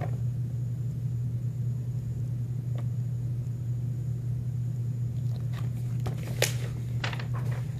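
Steady low hum, with crisp rustles and a sharp snap of a paperback picture book's pages being handled and flipped about five to seven seconds in.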